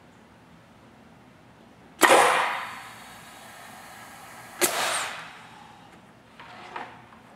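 Tippmann Clicker 700 air-powered die cutting press cycling: a sudden loud rush of air about two seconds in as it presses down on the embossing die, a steady hiss while it holds, then a second sharp burst of air about four and a half seconds in as it lets go. A few light knocks follow as the sliding bed is pulled back out.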